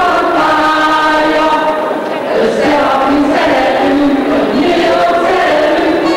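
A group of men and women singing together in unison, holding long notes that change step by step.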